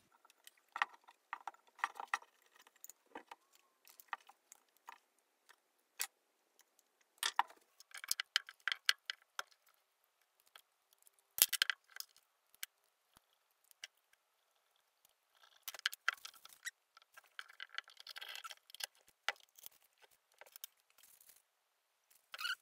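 Irregular small clicks and light metallic clinks of electric motor parts and a screw being handled and fitted during hand reassembly. The sharpest knock comes about eleven seconds in.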